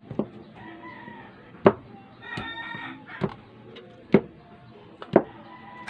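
Raw chicken drumsticks set down one at a time on a bamboo cutting board, five soft thumps about a second apart. Between them a rooster crows in the background, loudest about halfway through.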